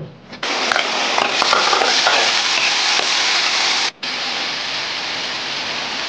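Steady hiss of steam and boiling water under a bamboo rice steamer of black rice, with a few faint clicks; it breaks off for an instant about four seconds in and carries on.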